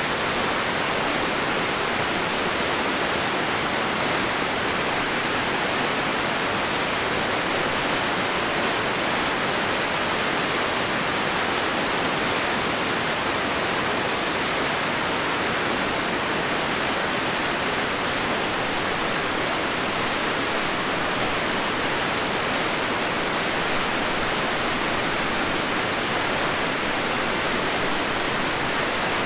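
Crystal River rushing over its falls: a steady, unchanging wash of white water.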